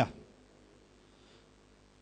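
Near silence: faint room tone in a pause between spoken phrases, with the tail of a man's voice at the very start.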